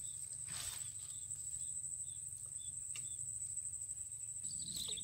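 Steady high-pitched insect trill in swampy grassland, with a few short faint chirps over it and a brief rustle about half a second in.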